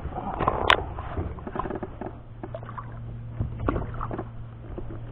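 Irregular knocks, clicks and rustling of handling inside a kayak, with one sharp click under a second in, over a steady low hum.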